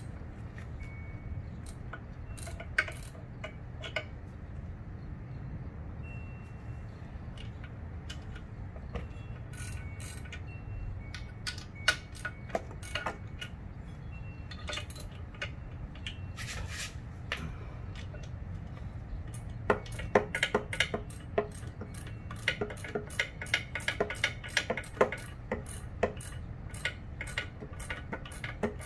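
Hand tools clicking and clinking against a metal engine part: scattered sharp clicks at first, then a busy run of rapid, irregular clicking from about two-thirds of the way in, over a steady low background rumble.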